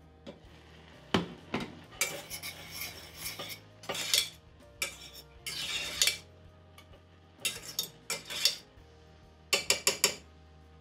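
Metal fork scraping and clinking against the sides of a stainless steel pot while fluffing cooked basmati rice, after the pot's glass lid clinks as it comes off about a second in. Near the end there is a quick run of four sharp clinks.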